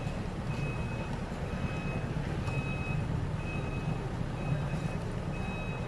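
Large wooden crosses dragged along an asphalt road, their ends scraping in a steady low grinding noise. Over it, a high electronic beep repeats about once a second, each beep about half a second long, like a vehicle's reversing alarm.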